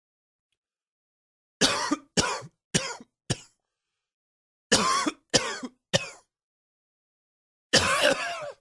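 A man's coughing fit in bouts: four coughs in quick succession, each shorter and weaker than the last, then three more after a pause, then one longer cough near the end.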